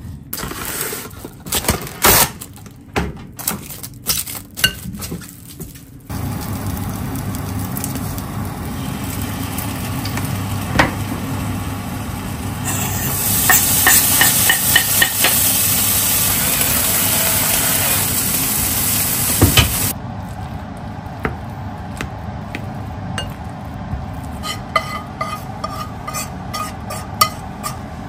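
Knife cutting peeled sweet potato on a cutting board, a run of sharp knocks. About thirteen seconds in, diced bacon tipped into a dry frying pan starts sizzling loudly and is stirred for several seconds. Near the end come softer scraping and clicks of a spatula mixing mashed sweet potato in a glass bowl.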